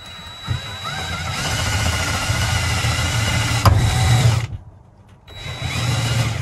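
DeWalt 18V cordless drill driver running under load, driving a screw through the bench vise's mounting hole into the wooden workbench. The motor winds up in pitch, runs steadily for about four seconds with a sharp crack near the end of the run, stops, then runs again briefly near the end.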